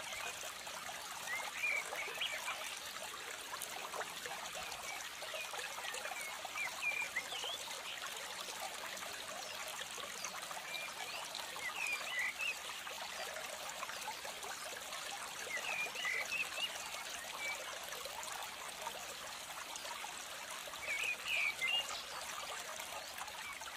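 Water trickling steadily, with short bursts of bird chirps every few seconds over it.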